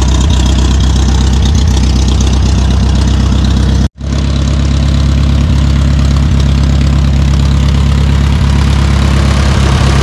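The four-cylinder gas-start diesel engine of an International Harvester TD-9 crawler runs steadily on gasoline with the choke off, warming up before the switch-over to diesel. About four seconds in the sound drops out completely for a moment, then the engine runs on with a deeper note.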